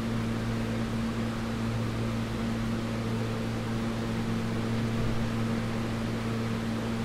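Steady electrical hum and air-conditioning rush of a New York City subway train standing at the platform: a low, even hum under a constant hiss, with no change from start to end.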